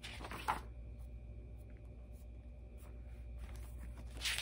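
Sheets of drawing paper rustling as they are handled and turned, once at the start and again near the end, with a few faint ticks between over a steady low room hum.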